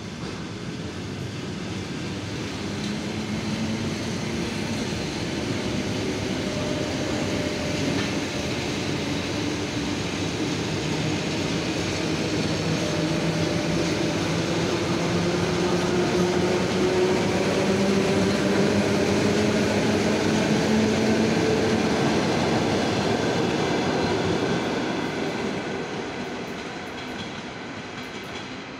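ER9M electric multiple unit running past, with wheels rumbling and clattering on the rails and a traction-motor whine that climbs steadily in pitch as the train picks up speed. The sound fades near the end.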